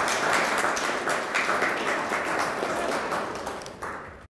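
Audience applauding: many hands clapping together, thinning out and dying away near the end.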